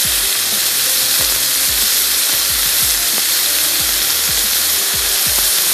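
Boneless chicken pieces sizzling steadily in a grill pan over low heat, with short soft knocks every half second or so as the pieces are turned with a fork.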